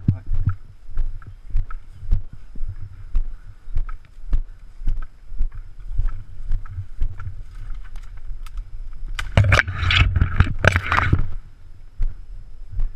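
Footsteps heard through a body-worn action camera as dull thumps, about two a second. About three-quarters of the way through there are two seconds of loud rustling and scraping, as leaves and branches brush against the camera.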